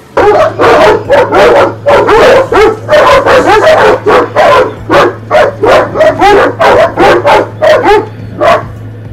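Several dogs barking at each other through a metal driveway gate, a fast volley of loud barks, about three a second, that stops about eight and a half seconds in.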